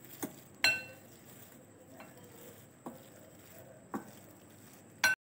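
Metal potato masher pressing boiled potatoes in a glass bowl, knocking against the glass about six times at uneven intervals. The loudest knock, under a second in, rings briefly like struck glass.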